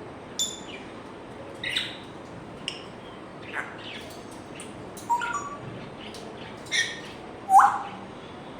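African grey parrot making a string of short chirps, clicks and whistles, roughly one a second, the loudest a rising whistle near the end.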